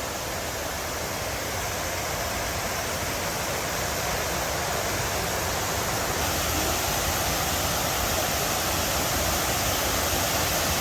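Waterfall close by: a steady, even rush of falling water, getting a little louder toward the end.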